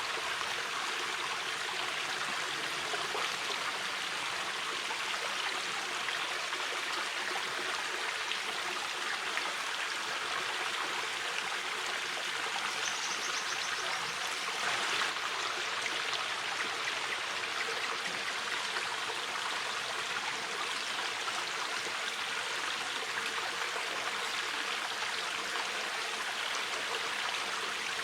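Mountain river flowing steadily: an even, continuous rush of water, slightly louder for a moment about halfway through.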